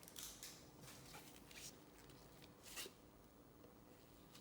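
Faint rustling and swishing of trading cards being slid and handled, a few soft strokes against near silence.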